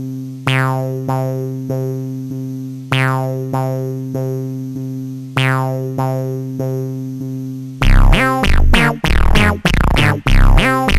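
Electronic synthesizer music: sustained keyboard chords re-struck on a steady pulse, then a louder section with a heavy bass line comes in about eight seconds in.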